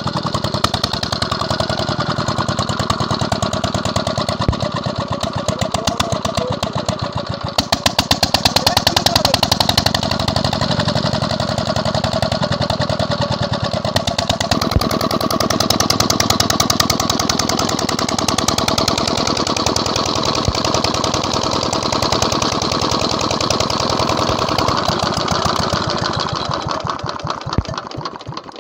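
KAM 16 hp single-cylinder diesel 'Peter' engine running steadily just after starting, an even, rapid chugging of firing strokes. It is still blowing heavy exhaust smoke.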